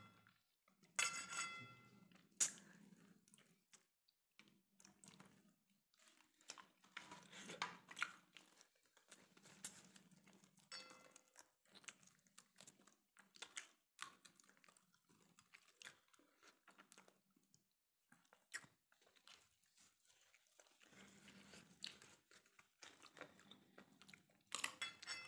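Faint chewing of chicken curry and roti eaten by hand, soft irregular mouth sounds with scattered sharp clicks, the sharpest about two and a half seconds in.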